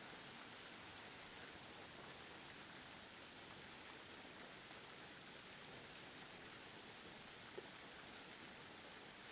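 Faint, steady rain, with a few soft drop ticks and one sharper tick about three-quarters of the way through.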